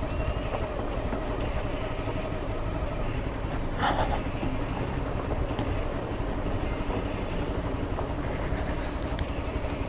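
Motorcycle engine running steadily under way, with a constant low rumble of wind and road noise on the microphone. A brief, sharper sound rises above it about four seconds in.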